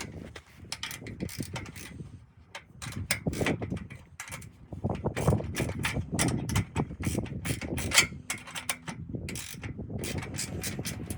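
Irregular clicks, clanks and rattles of metal hardware being handled and fitted together, busiest and loudest from about five to eight seconds in.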